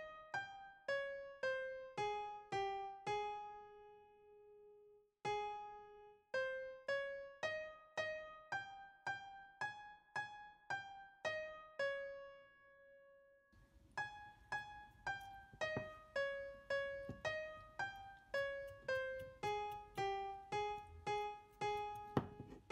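Background music: a gentle melody of single piano-like notes, struck one after another and each fading away, with two short pauses along the way.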